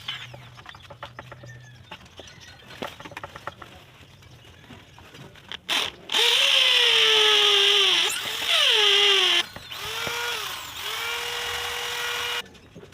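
Electric drill boring a screw hole, running in three bursts from about six seconds in; its pitch sags as the bit bites, then holds steady through the last and longest run. Light handling clicks and taps come before it.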